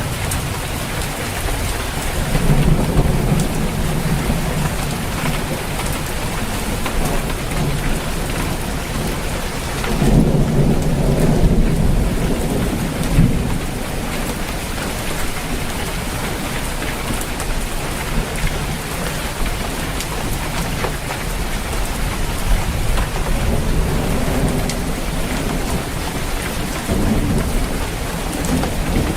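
Steady heavy rain on a roof with rolling thunder, low rumbles swelling a couple of seconds in, again about ten seconds in, and near the end.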